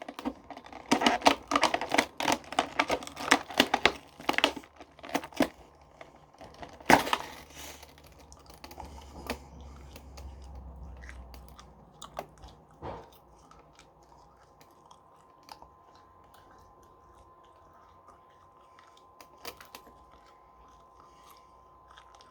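Toy packaging being handled and torn open: dense crackling and tearing for about six seconds, a sharp snap about seven seconds in, then only scattered faint clicks.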